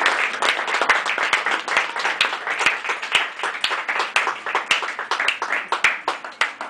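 A group of people applauding, dense clapping that thins out toward the end.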